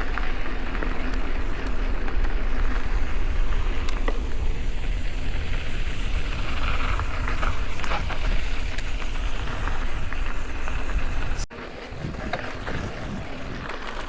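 Wind buffeting the camera microphone over the noise of a mountain bike's tyres rolling on a rough dirt trail, with scattered clicks and rattles. The sound breaks off abruptly about eleven seconds in and goes on more quietly.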